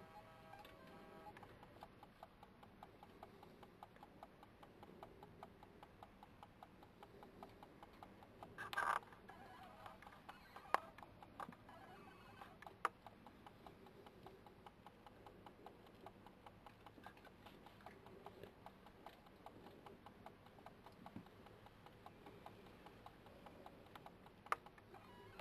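Near silence: faint background hiss with scattered soft ticks, a brief rustling burst about nine seconds in, and a few isolated sharp clicks.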